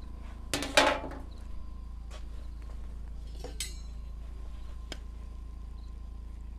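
A large aluminium cooking-pot lid clatters down onto a metal rack just under a second in, followed by a bright metallic clink of cooking utensils a few seconds later and a single click near the end, over a steady low hum.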